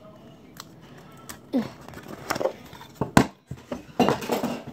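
Hands handling a plastic toy container on a table: a few light handling noises, a sharp knock a little after three seconds in, then a short stretch of rustling and scraping.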